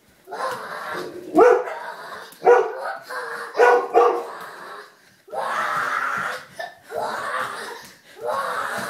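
A string of loud vocal cries, about one a second, each lasting under a second.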